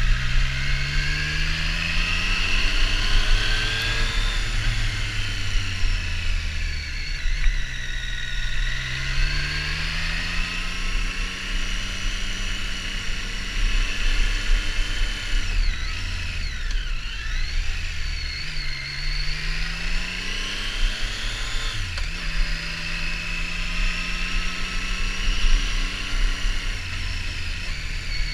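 Triumph Street Triple R's three-cylinder engine under way, its pitch rising with the throttle and dropping back several times over, about every four to six seconds. Wind rush runs underneath.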